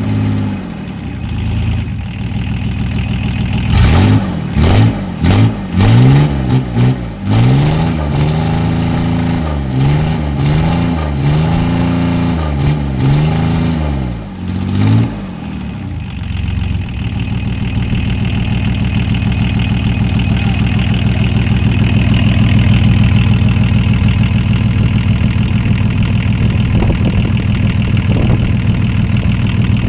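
Volvo six-cylinder diesel engine running on only two working glow plugs, the other four being dead. It is revved up and down over and over, then settles to a steady idle about halfway through.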